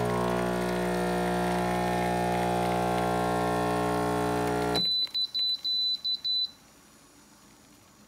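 Home espresso machine's pump humming steadily while a double shot pours, cutting off suddenly a little past halfway. Right after, the machine gives a quick series of about five short high beeps, signalling the shot is done.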